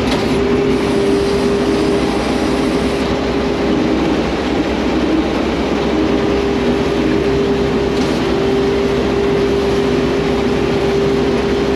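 John Deere combine harvester running steadily while harvesting, a loud continuous mechanical drone with a constant high whine over it.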